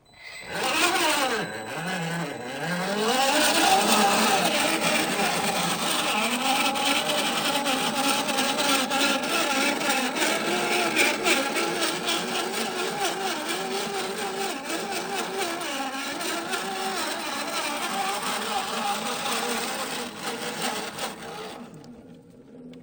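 RGT EX86100 RC rock crawler driving: its brushed electric motor and gearbox whine, rising and falling in pitch with the throttle, with rapid clicking and crunching over it. It starts abruptly and fades out near the end.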